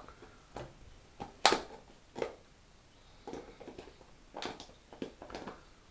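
Puppy chewing and mouthing a plastic bottle: irregular crackles and clicks of the plastic, the loudest about a second and a half in.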